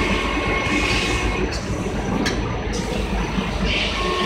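Steady mechanical din of a running shoe-factory assembly line and its machines: a continuous low rumble with a faint high whine in the first half.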